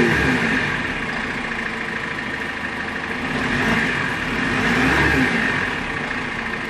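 2013 GAZ Gazelle minibus's diesel engine revved while stationary: it falls back from a blip to idle about half a second in, then is blipped once more about four and a half seconds in and drops back to idle. It sounds very healthy.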